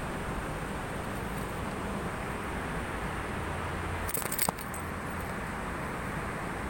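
A brief metallic jingle and clink lasting about half a second, about four seconds in, ending in one sharp click, over steady background noise.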